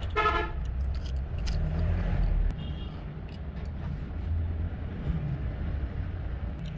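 A short car horn toot right at the start, over a steady low rumble of road traffic.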